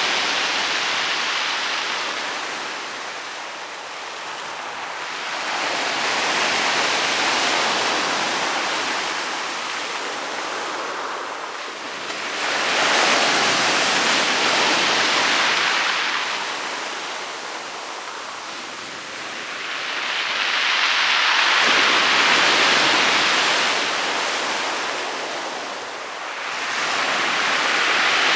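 Sea waves breaking and washing over a pebble beach, the surf noise swelling and fading in slow surges about every six to eight seconds.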